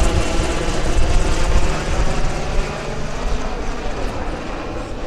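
Military aircraft passing close overhead, a loud engine and rotor or propeller drone that peaks about a second or two in and then slowly fades as it moves away.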